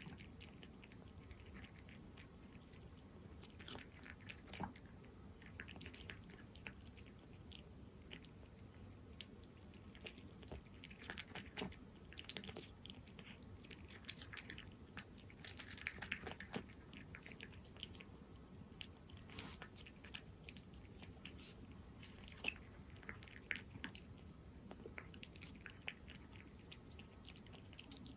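A cat chewing and licking up wet chunks-in-jelly cat food, with faint, irregular wet smacks and clicks of its mouth.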